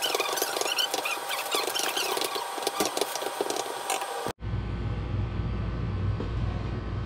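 Rice frying in a hot wok, a dense sizzling crackle. An abrupt cut about four seconds in gives way to a steady low rumble.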